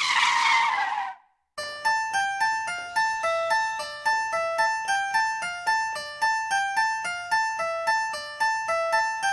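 A brief noisy swoosh lasting about a second. After a short gap it gives way to background music: a repeating melody of plucked keyboard notes, each struck and fading, about two or three a second.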